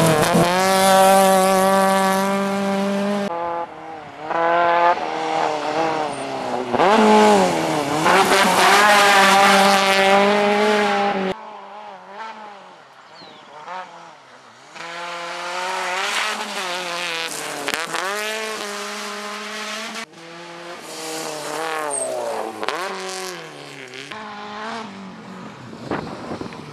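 Small four-cylinder rally cars at full throttle on a gravel stage, engines revving high and falling as they change gear and lift. Several separate passes follow one another with abrupt cuts, the third one quieter and further off.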